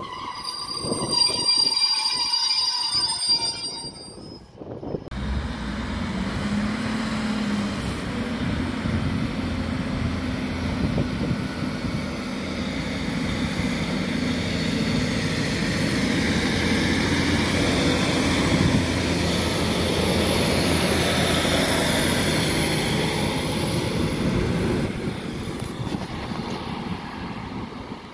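Two-car Class 156 diesel multiple unit on the move: a high metallic squeal for the first four seconds, then its diesel engines running with a low, steady note and the rumble of the cars passing, fading away near the end.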